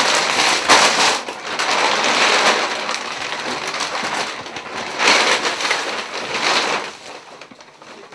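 Plastic shopping bag and cellophane snack packets rustling and crinkling as they are handled. It comes in several bursts, with a lull around three to four seconds in, and goes quieter near the end.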